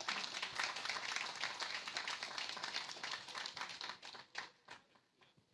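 Audience applauding, thinning to a few scattered claps near the end and dying away.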